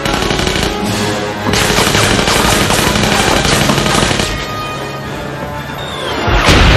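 Action-film sound mix: a dramatic score under bursts of automatic gunfire, with a sudden loud blast near the end.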